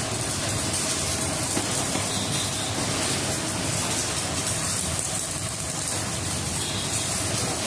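Pressure washer spraying water onto a motorcycle: the water jet hisses steadily over the washer's pump motor running at a constant hum.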